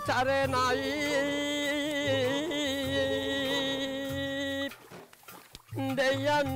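A man singing a traditional threshing-floor song (kamath kavi) in long, drawn-out notes with a wavering pitch; the song breaks off about four and a half seconds in and starts again a second later.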